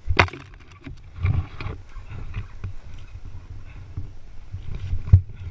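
Bumping and scraping picked up by a helmet-mounted camera as a fallen dirt bike is handled and wrestled upright in the scrub, with a sharp knock at the start and a louder one near the end. No engine is running.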